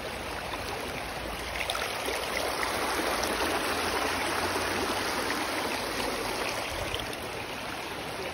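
Shallow creek water running and babbling over rocks, a steady rush that grows a little louder from about two seconds in and eases again near the end.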